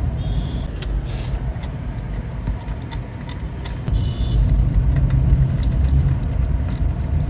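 A car's engine running with a steady low rumble that grows louder about four seconds in, with many scattered light clicks and two brief high-pitched tones.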